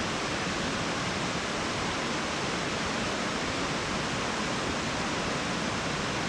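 A 50-foot waterfall's water falling steadily, an even rushing noise with no change in level.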